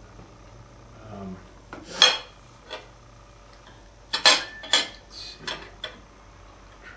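Metal knife and fork clinking and scraping on a dinner plate as food is cut: one sharp clink about two seconds in, then a quick run of clinks and scrapes from about four to six seconds in.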